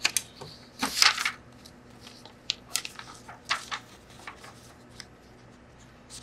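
A sheet of printed photo paper being picked up and handled, rustling and crinkling on and off, loudest about a second in.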